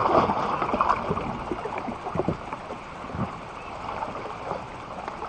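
Water splashing and sloshing around a kayak in a river, with a few short knocks.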